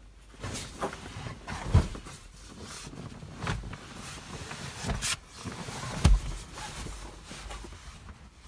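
Handling noise of a large folding mattress pad being lifted and laid onto a van's bed platform: rustling and shuffling with several dull thumps, the loudest about two seconds in and again about six seconds in.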